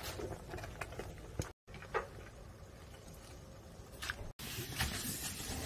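A few light clicks and taps of kitchen utensils or dishes over low background noise, broken by short sudden dropouts where the clip is cut.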